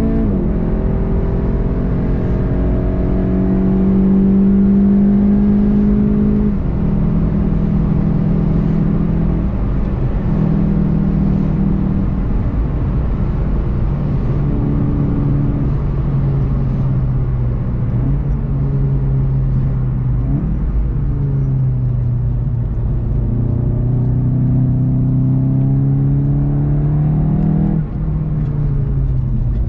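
In-cabin sound of a VW Golf GTI TCR's turbocharged 2.0-litre four-cylinder at speed, with steady road rumble beneath. The engine note rises and falls in steps through gear changes, and near the end the revs drop sharply as the car slows for a corner.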